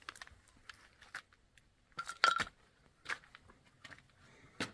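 Loose flat stone fragments clinking and clicking underfoot. The loudest clinks, with a brief ring, come about two seconds in, and there is another sharp click near the end.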